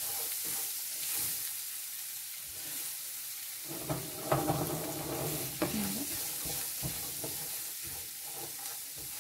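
Chopped onion frying in hot oil in a nonstick frying pan, a steady sizzle, stirred with a silicone spatula that scrapes through it. A couple of sharp knocks of the spatula on the pan come near the middle.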